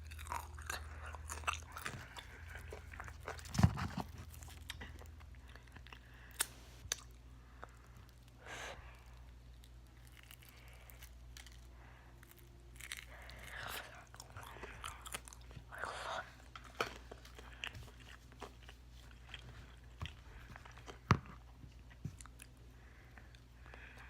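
Crispy fried chicken being bitten and chewed close to the microphone: irregular crunches and wet mouth sounds, with a sharp, loud crunch about four seconds in and another near the end.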